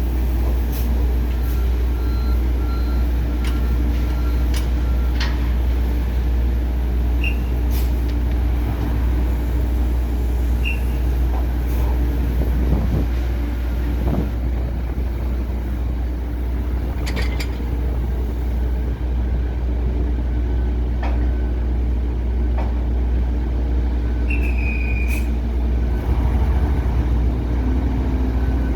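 Heavy diesel machinery running steadily during wheat unloading from a ship into trucks, with a deep, constant rumble. Short high-pitched squeals or beeps come a few times, one longer near the end, along with scattered clanks.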